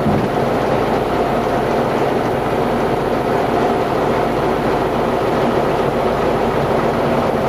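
Tatra 813 Kolos's air-cooled V12 diesel running steadily as the truck drives off-road, heard from inside the cab as a loud, even rumble.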